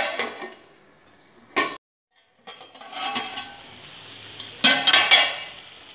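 Metal clanks and clatter of an aluminium pot lid being set on a steel kadai and handled with pan-gripper tongs. There is a clank at the start, a short cut to dead silence near two seconds in, and a louder burst of metal-on-metal clatter about five seconds in.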